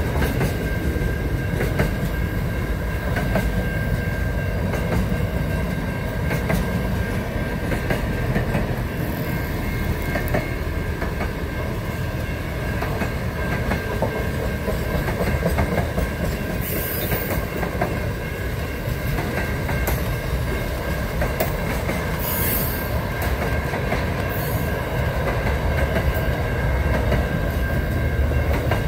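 Freight train wagons rolling past: a steady rumble of steel wheels on rail with clicks over the rail joints and a thin, steady wheel squeal. A few short high hisses come in the second half.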